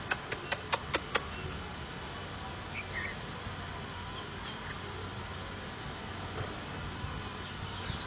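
A quick run of about six sharp clicks in the first second, then steady background noise with a faint short chirp about three seconds in.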